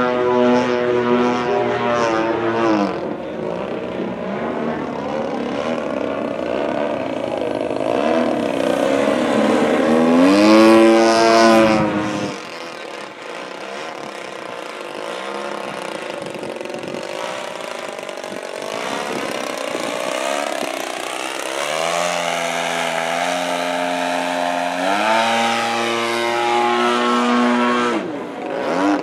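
DLE-35RA single-cylinder two-stroke gas engine and propeller of a 75-inch Extra 330 LT radio-control aerobatic plane, its pitch rising and falling with throttle and as the plane passes. About twelve seconds in, after a loud rising-then-falling pass, the engine is throttled down sharply; later it holds steady, stepped pitches while the plane hangs nose-up in a hover.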